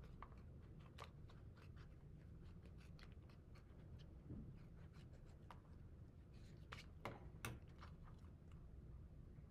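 Scissors cutting a paper plate: faint, irregular snips and crinkles, with a few louder snips about seven seconds in.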